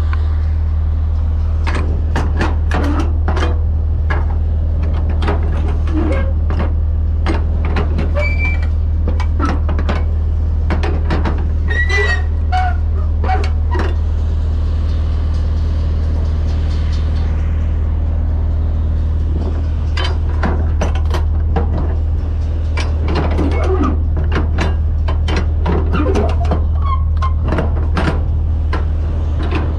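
A steady low engine hum under many scattered sharp clicks and knocks, the sounds of cargo straps and metal gear being handled along a loaded flatbed trailer.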